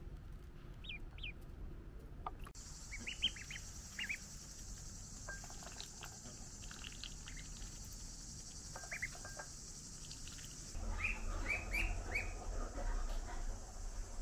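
Ducklings peeping: short, high, downward-sliding peeps in quick runs of two to four, repeated several times. A faint steady hiss sits behind them in the middle, and a low rumble comes in near the end.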